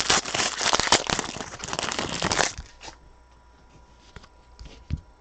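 Plastic packaging crinkling and rustling as trading cards are handled, for about two and a half seconds, then a few soft taps.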